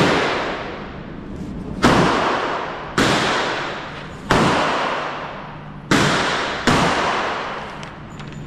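Six gunshots at a shooting range, irregularly spaced, each followed by a long fading echo.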